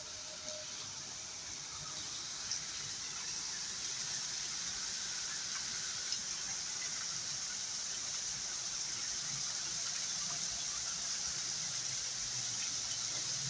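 Heavy rain pouring down in strong wind, a steady hiss that slowly grows louder, with a couple of faint taps.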